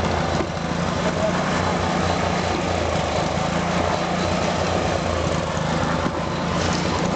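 An engine running steadily at idle, a constant low drone with no change in speed.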